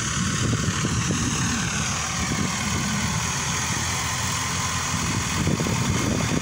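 Backhoe loader's diesel engine running steadily as the machine drives slowly.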